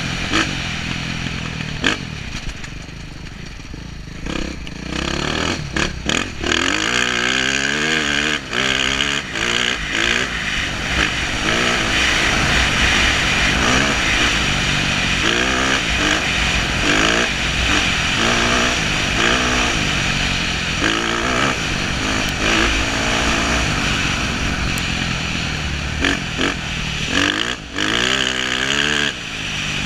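Dirt bike engine under way, repeatedly revving up through the gears and dropping back as it shifts and accelerates along the trail.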